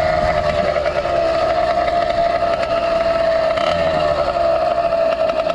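Small two-stroke motorized-bicycle engine running at a steady cruising speed, a high buzzing drone that holds its pitch, dipping slightly about four seconds in.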